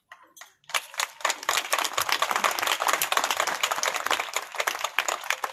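Small crowd applauding. It starts about a second in and thins out near the end.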